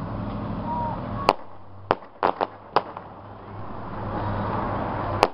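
Aerial fireworks bursting: a sharp bang about a second in, a quick run of four pops a moment later, and another bang near the end, over a steady low hum.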